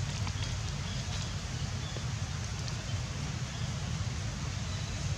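Steady outdoor background noise: a low rumble with a fainter hiss above it, with a few faint ticks in the first few seconds. It is typical of wind on the microphone.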